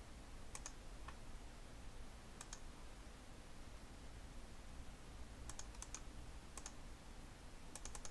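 Computer mouse clicks and keyboard typing. A few single clicks come in the first few seconds, then short quick runs of keystrokes about five and a half seconds in and again at the end.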